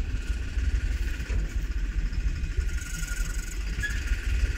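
Tractor engine idling steadily with a low rumble.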